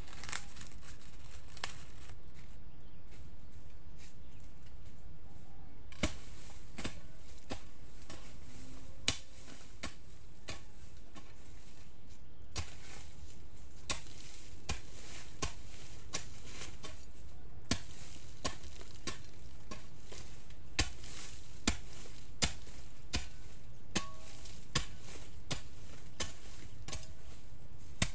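A hoe chopping into hard, dry clay soil as planting holes are dug: separate thuds, a few apart at first, then coming roughly once a second through the second half.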